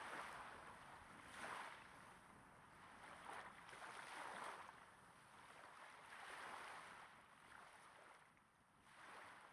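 Small waves breaking gently on a sandy beach, heard up close: a soft rush of water swells and falls back every second or two, with a quieter lull shortly before the end.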